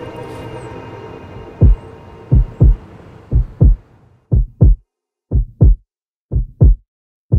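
Background music fading out over the first few seconds as a heartbeat sound effect comes in: low paired thumps, lub-dub, about once a second, repeating steadily.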